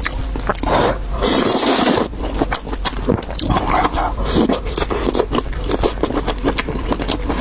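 Close-miked eating of spicy fried noodles: wet chewing with many quick smacking clicks, and a longer slurp about a second in.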